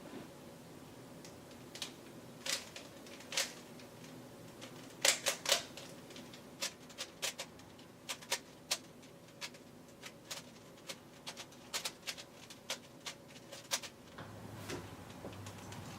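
3x3 Rubik's cube being twisted by hand, its plastic layers clicking and clacking in irregular runs, with the loudest group of three clacks about five seconds in.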